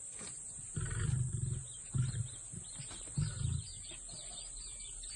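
Lion growling in three low, rough bursts, about a second in, at two seconds and just after three seconds.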